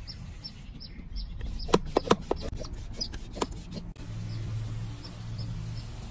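A bird chirps repeatedly, short high notes about two a second. In the middle comes a cluster of sharp clicks and knocks as the soil and plastic pot are handled. A low steady hum comes in about four seconds in.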